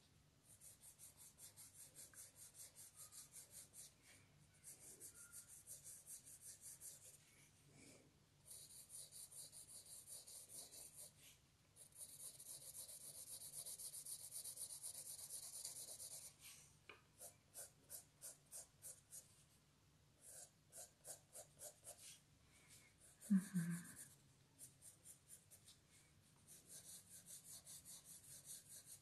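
Faint pencil shading on paper: runs of quick, rhythmic back-and-forth hatching strokes, broken by short pauses, as an area of tone is darkened. A brief vocal sound breaks in about three-quarters of the way through.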